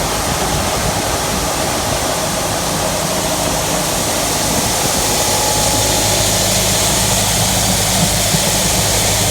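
Tractor engine running steadily to drive a PTO grain auger that carries shelled corn from a wagon up into a grain bin, with a steady rushing noise over the engine's low hum. The engine hum grows a little stronger about halfway through.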